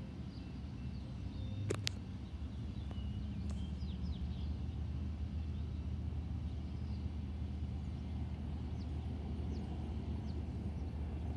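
Steady low engine rumble in the open air, with a few faint bird chirps and two sharp clicks just before two seconds in.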